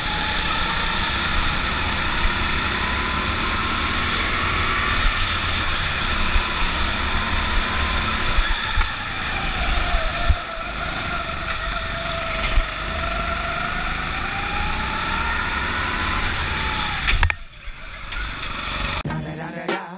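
Go-kart motors running at speed, with a whine that rises and falls in pitch as the karts speed up and slow down. The kart sound drops away near the end, and music with a beat starts.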